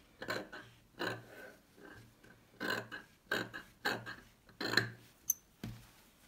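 Steel dressmaking scissors cutting through fabric, a series of about ten short, irregular snips along a seam.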